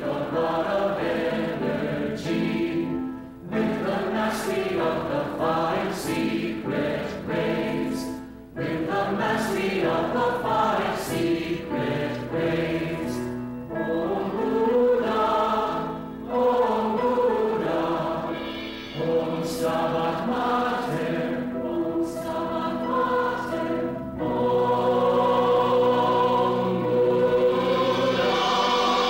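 A choir singing in phrases with brief pauses between them, swelling into a long held chord near the end.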